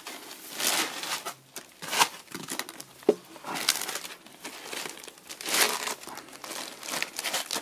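Thin plastic bag around a new laptop crinkling and rustling in irregular bursts as the foam packing blocks are pulled off and the wrapped laptop is lifted and handled.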